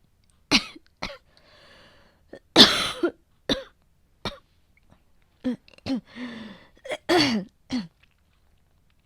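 A young woman coughing in a run of about ten harsh coughs, with breathy gasps between them. The heaviest cough comes about two and a half seconds in and another bout comes around seven seconds. It is an acted sick cough, played as a cold with a high fever.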